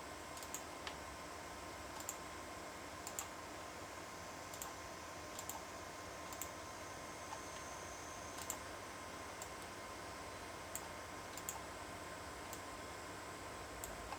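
Faint, irregularly spaced sharp clicks, roughly one a second, over a steady background hiss.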